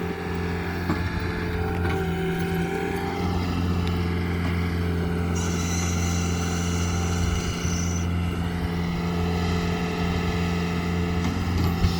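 Engine running steadily under load, driving an earth auger that bores a pier hole into the ground.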